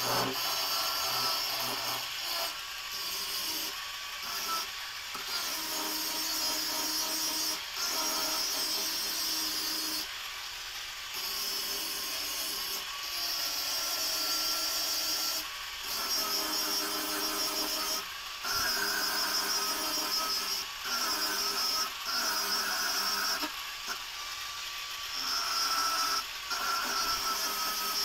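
Angle grinder grinding spring steel from an old leaf spring. Its whine wavers in pitch, with several brief lulls.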